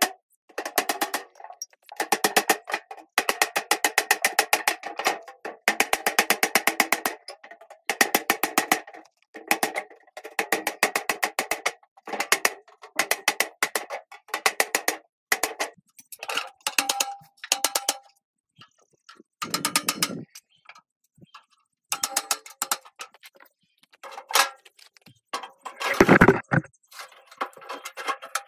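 Hammer striking the back of a cleaver to chisel through the thin rusty sheet steel of a square can's lid, in quick runs of ringing metallic taps with short pauses between them. A single deeper, louder thump about 26 seconds in.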